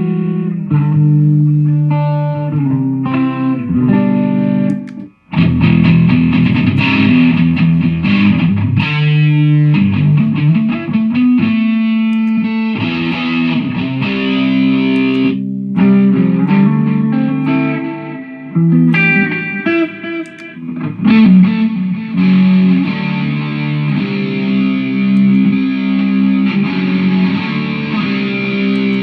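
Electric guitar played through a Mooer GE150 multi-effects unit, runs of notes and held chords, with short breaks about five seconds in and again about halfway through.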